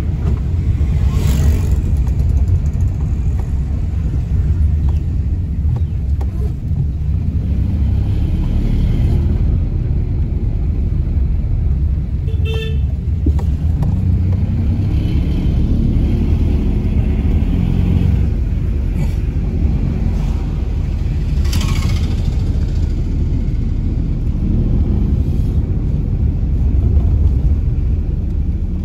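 Car cabin noise while driving: a steady low engine and road rumble, with a brief vehicle horn toot about halfway through.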